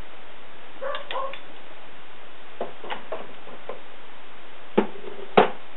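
Metal lathe accessories clinking and knocking as they are handled and set down in a wooden box: a few light clicks, then two sharper knocks near the end, over a steady hiss.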